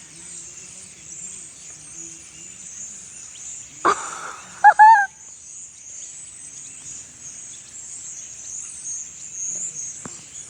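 Dense, continuous high-pitched chattering of a large flock of birds. About four seconds in comes a sharp knock, and just after it two short, loud high-pitched cries.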